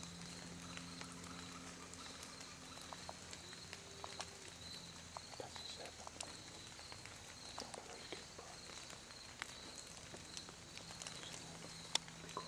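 Whitetail deer walking through dry leaf litter: scattered faint crunches and twig snaps, with one sharper snap near the end, over a steady high-pitched hum.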